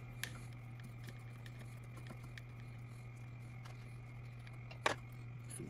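Small clicks and taps of a hex key and a plastic drag-chain bracket being handled on a CNC router's gantry, with one sharper click near the end, over a steady low hum.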